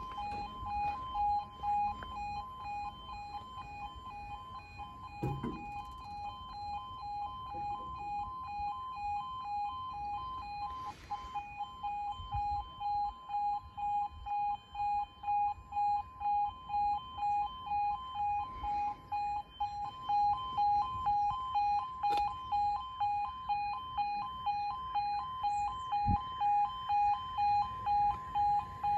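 Railway level crossing alarm sounding, its two tones alternating steadily about twice a second while the red warning lights flash, the sign that a train or tram is approaching. The alarm grows louder from about two-thirds of the way in.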